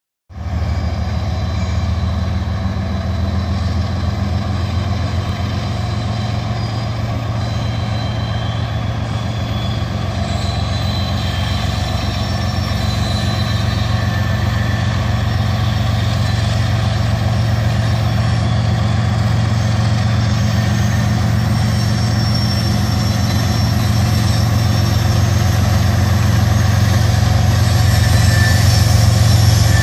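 Norfolk Southern GE diesel-electric locomotives at the head of a loaded coal train descending a grade, a steady low engine drone with higher steady tones above it, growing gradually louder as the locomotives approach.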